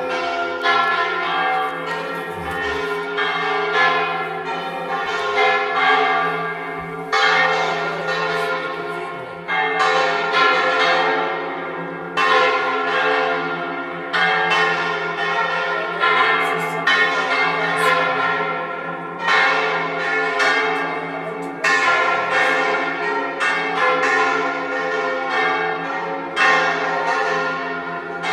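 Burgos Cathedral's church bells ringing a peal: strikes follow one another about once a second, over a steady hum of overlapping bell tones that keep sounding between strikes.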